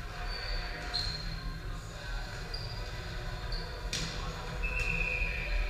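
Indoor court game: sneakers squeak in short chirps on a hard gym floor, with a longer squeal near the end, and a ball strikes sharply twice, about three seconds apart, echoing in a large hall.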